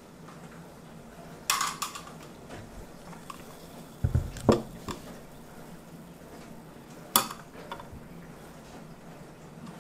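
A drinking glass with a straw and a plastic soda bottle knocking and clinking on a wooden tabletop as they are set down and handled: a short clatter, then a cluster of knocks with a dull thump about four seconds in, and one sharp clink of the straw against the glass near the end.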